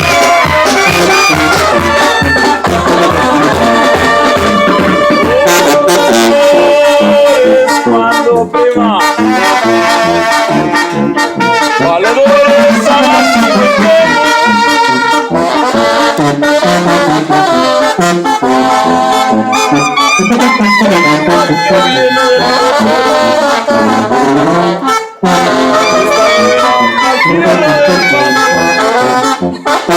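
Mexican banda playing live, trombones and trumpets carrying the melody over the band, with a brief break a few seconds before the end.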